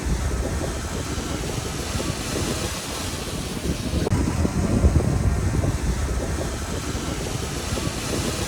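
Diesel engine of heavy earthmoving machinery running under work, a steady low rumble that swells slightly around the middle.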